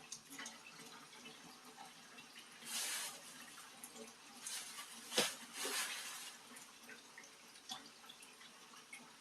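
Dishes being washed in a kitchen sink: water splashing and dripping in short bursts, with small clinks and one sharp knock about five seconds in.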